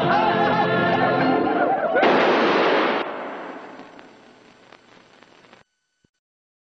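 Trailer music, cut off about two seconds in by a loud blast like an explosion. The blast lasts about a second, dies away over the next couple of seconds, and then the sound cuts off to silence.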